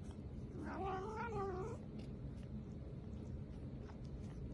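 A domestic cat giving one soft, wavering meow about a second in, lasting about a second.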